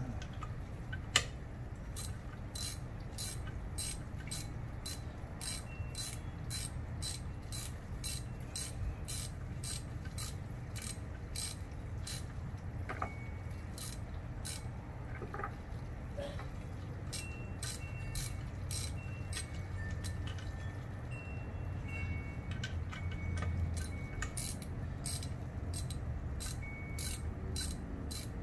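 Hand ratchet wrench clicking as it works bolts on a Nissan VG33 V6 cylinder head: sharp clicks about two a second, thinning out for a few seconds midway.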